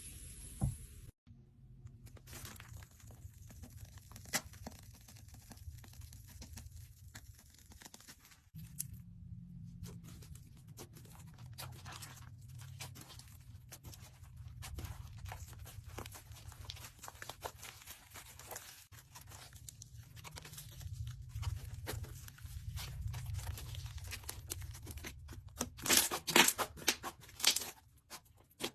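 Dense crackling and tearing sounds, many small pops and crinkles, with a louder burst of crackling about 26 seconds in.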